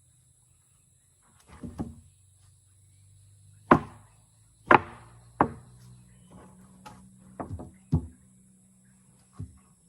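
Pieces of wood knocking and thudding against each other, about seven sharp irregular knocks, over a faint steady low hum.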